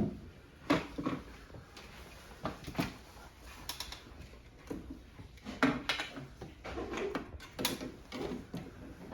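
Irregular clicks, knocks and light rattles of parts and tools being handled while a replacement refrigerator inverter drive module is fitted and wired in.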